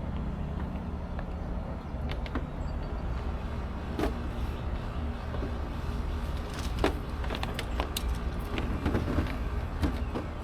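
Scattered light clicks and knocks of hardware being handled while fastening a spa controller in place with wing nuts, over a steady low rumble. The clicks bunch up from about four seconds in.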